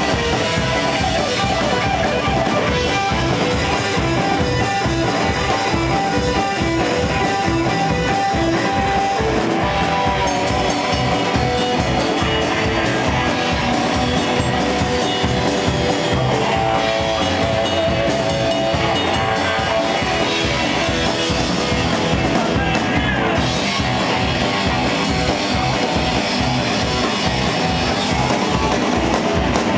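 Live rock and roll band playing: electric guitar over an upright bass and a drum kit, a steady driving beat with no break.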